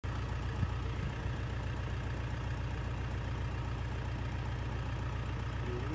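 Game-drive vehicle's engine idling steadily, with a single light knock about half a second in.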